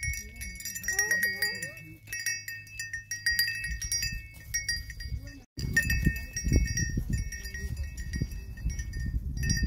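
Goat bells on the goats' collars clanking irregularly as the goats feed and move about. About halfway the sound drops out for a moment, and after that a low rumble runs under the bells.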